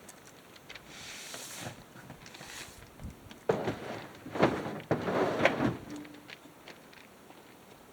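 A few knocks and scraping clatters, loudest in a cluster about halfway through.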